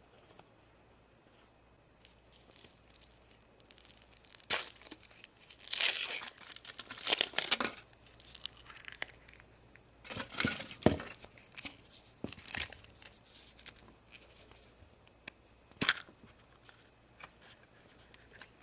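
Foil wrapper of a Kinder Surprise egg being torn and crinkled in irregular bursts, with a few sharp clicks.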